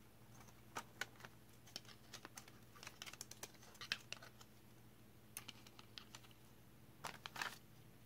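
Light, scattered clicks and taps of car-stereo dash-kit frame pieces being handled and snapped together, with a cluster of quicker clicks about seven seconds in.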